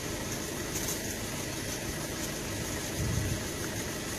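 Steady outdoor background noise: an even hiss over a low rumble, swelling slightly about three seconds in.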